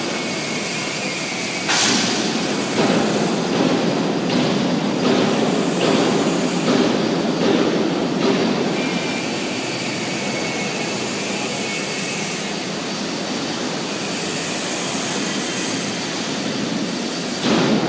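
Bulk feed delivery truck running with its discharge machinery working: a steady mechanical drone, with a series of knocks and clanks between about two and nine seconds in.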